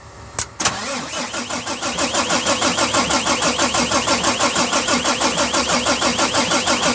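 Volvo FM 370 truck diesel engine being cranked by its starter motor. After a click, it turns over in an even rhythm of compression pulses without catching. It cranks but won't start because the replacement engine control unit's chassis ID does not match the truck's other control units.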